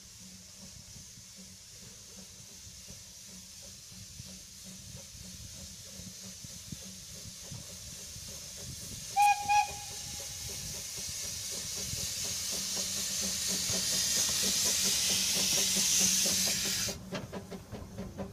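Narrow-gauge steam locomotive approaching: a steam hiss that grows steadily louder as it nears, with two short whistle toots about nine seconds in. The hiss cuts off suddenly near the end, leaving the knocking of the wheels and motion as the engine passes.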